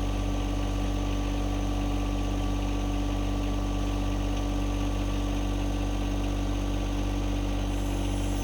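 John Deere 2025R compact tractor's three-cylinder diesel engine idling steadily.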